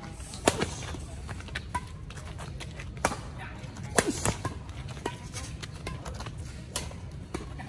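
Badminton rackets striking a shuttlecock in a fast doubles rally: a string of sharp smacks, the loudest about half a second in and at four seconds, over a steady low rumble.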